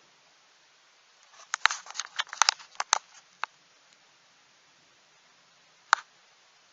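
A quick run of sharp clicks and taps lasting about two seconds, then one more single click near the end.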